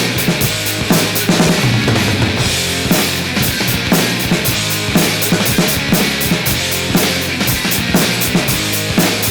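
Rock music with a drum kit played along to it on a Roland TD-17KVX electronic drum set: a steady beat with close-set cymbal strokes over a bass line, no singing.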